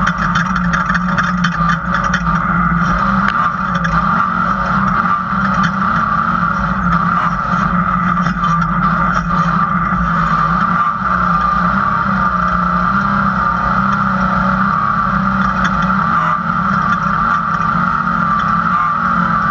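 Off-road race vehicle's engine running hard at a steady pitch, heard from inside the cab, with rattling and knocking from the chassis over rough dirt, busiest in the first few seconds.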